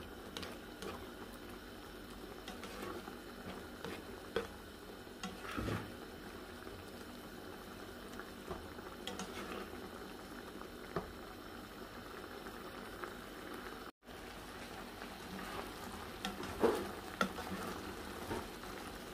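Thick cream sauce with shrimp and mussels simmering in a frying pan, bubbling with small scattered pops, and now and then the scrape and knock of a utensil stirring it.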